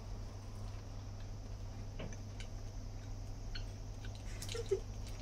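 Quiet chewing of a KitKat wafer bar: a few faint, scattered crunches and clicks over a steady low electrical hum.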